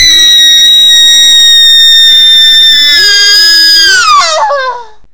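A woman's long, loud scream, held at one pitch for about four seconds, then wavering and falling away near the end.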